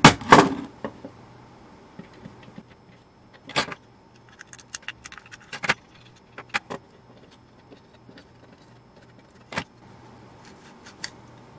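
Metal parts being handled: a small metal RF horn housing is turned over and knocked about on a wooden workbench. A loud clatter comes at the start, then scattered light clicks and knocks.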